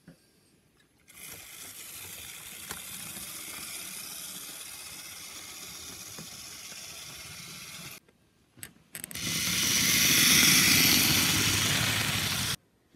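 HO scale model train rolling along its track, its wheels giving a steady hiss on the rails. After a brief gap with a couple of clicks comes a louder, closer pass that swells and then cuts off abruptly near the end.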